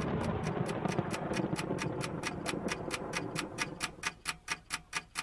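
Ticking-clock sound effect at about four quick ticks a second, used as a thinking-time cue while an answer is awaited. Under it is a rushing hit that fades out about four seconds in.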